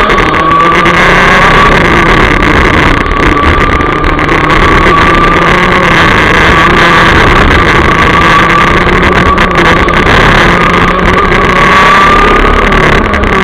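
Rotax DD2 125cc two-stroke racing kart engine running flat out, heard loud from onboard, its high pitch holding steady with small rises and falls.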